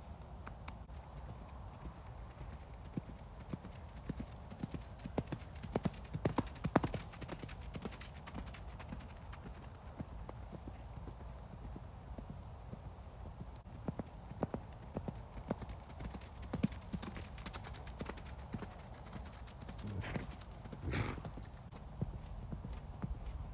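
Hoofbeats of a ridden horse on a sand arena surface, coming in irregular runs of sharp clip-clops as it moves off and canters. There is a brief louder sound near the end.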